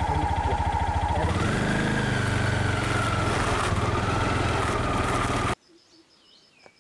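A vehicle engine running with a fast, even pulse, rising in pitch about a second in, then cut off abruptly near the end. Faint insect buzzing and a single short bird chirp are left after it.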